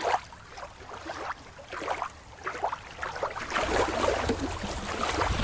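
Water splashing lightly around a swimming sea otter, then small waves lapping and splashing in shallow water at a rocky shore about three and a half seconds in, with a low rumble beneath.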